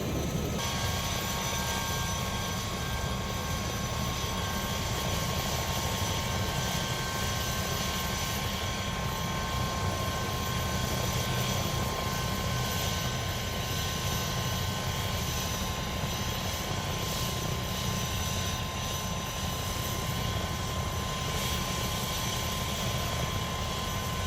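Bell UH-1 Huey helicopter running steadily in flight: a heavy low rotor rumble with a steady turbine whine over it, unchanging throughout.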